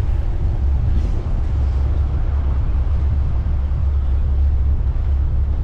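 Steady low rumble aboard a motorboat under way: its engine running and wind buffeting the microphone, with no sudden events.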